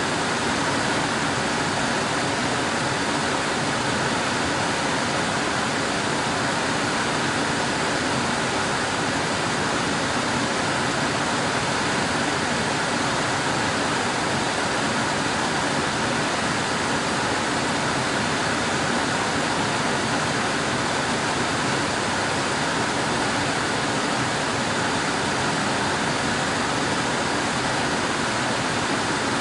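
Air conditioner running, a steady rushing hiss of blowing air that does not change.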